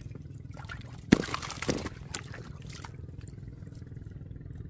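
Water splashing: a sharp splash about a second in, followed by a few smaller sloshes over the next second.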